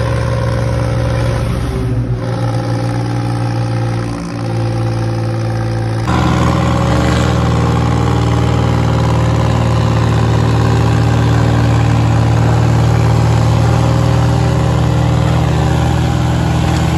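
Two tractor diesel engines, a John Deere 5050 D and a New Holland 3630, running hard at a steady high speed while pulling against each other in a tug-of-war. The sound changes abruptly about six seconds in and is a little louder afterwards.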